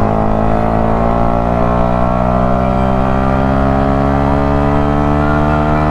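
A Yamaha YZF-R125's 125 cc single-cylinder four-stroke engine pulling hard in one gear as the motorcycle accelerates, its pitch climbing slowly and steadily.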